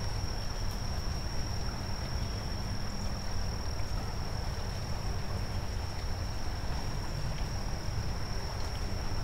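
Steady, high-pitched insect trill that does not break, over a low steady rumble.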